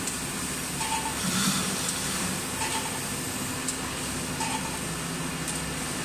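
HIPS sheet extrusion line running: steady machinery hum under a constant high hiss, with a short higher tone repeating about every two seconds and a few sharp clicks.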